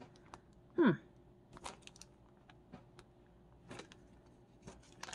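Small plastic zip-lock bag being handled and pulled open: scattered soft crinkles and clicks, with one brief louder falling-pitched sound about a second in.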